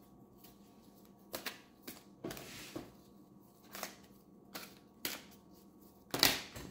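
An oracle card deck being shuffled by hand: a run of separate crisp card slaps and rustles. A longer rustle comes a little over two seconds in, and the loudest slap comes near the end.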